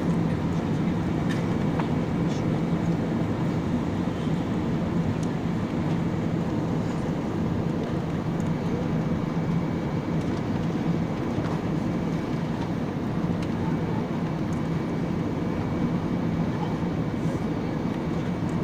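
Airliner cabin noise inside an Airbus A320-216 during descent: a steady drone of engines and airflow with a strong low hum, and a few faint clicks.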